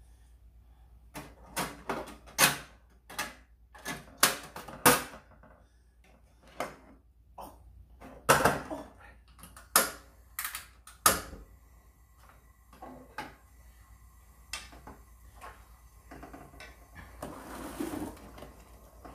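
Kitchen clatter: a run of about a dozen sharp, irregular clacks and knocks over roughly ten seconds, then fainter clicks and a short hiss near the end.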